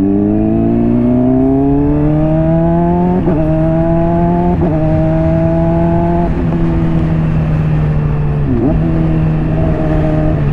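Honda CBR600RR inline-four running through a Hotbodies Stinger slip-on exhaust while riding, heard from the helmet with wind noise. The engine note climbs over the first couple of seconds, then holds steady, with brief breaks about three and four and a half seconds in and a short dip and recovery near eight and a half seconds in.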